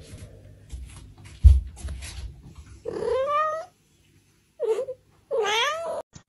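Cat yowling three times in drawn-out, bending calls, the middle one short. Before the calls there is scuffling, with one heavy thump about a second and a half in.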